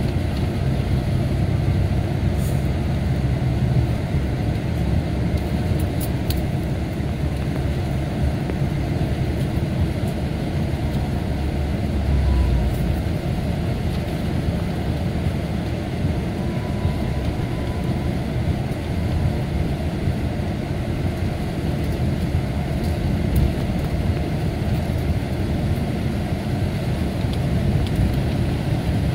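Mercedes-Benz O-500RSD coach's diesel engine running, a steady low rumble throughout.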